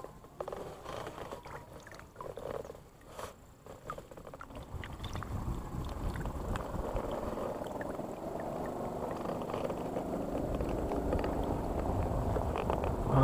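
A boat motor running at a distance, growing steadily louder from about five seconds in. Before it comes up, faint clicks and rustles of fishing gear being handled.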